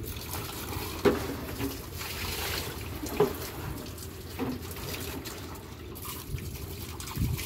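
Water running from a deck hose into a plastic bucket, then onto the deck near the end, with a couple of sharp knocks from handling the bucket. A steady low hum sits underneath.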